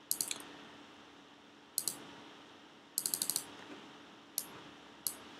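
Sharp clicks from a computer mouse and keyboard in small groups: a few at the start, a pair a little under two seconds in, a quick run of about six around three seconds in, then two single clicks. A faint steady hum runs underneath.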